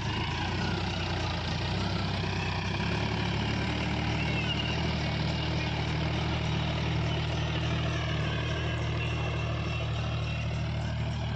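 Massey Ferguson 8055 tractor's diesel engine running steadily under load as it pulls a nine-tine spring cultivator through wet, hard soil.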